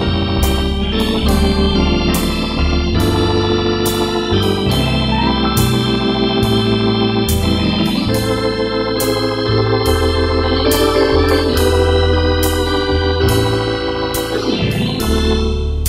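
Instrumental background music led by an organ, sustained chords over a bass line that changes every second or two, with a steady beat of sharp clicks about twice a second.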